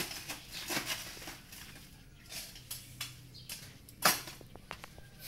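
Ice being scooped out of a plastic cooler box: scattered scraping and rattling, with one louder clatter about four seconds in and a few small clicks after it.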